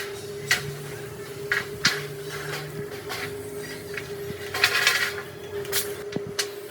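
Irregular metal clanks and knocks of steel parts being handled and struck, over a steady machine hum.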